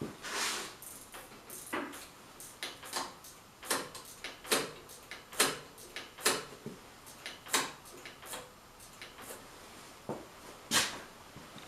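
Irregular clicks and light knocks of hand tools and metal parts being handled while adjusting a motorcycle clutch cable, about one or two a second.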